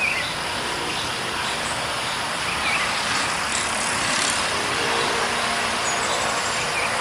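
A motor vehicle passing, heard as a steady rush of engine and road noise that swells slightly about four seconds in. A few faint short bird chirps sound over it.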